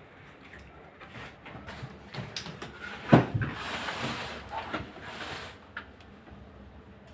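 Handling noises: scattered clicks and taps, a single loud knock about three seconds in, then a couple of seconds of rustling or scraping.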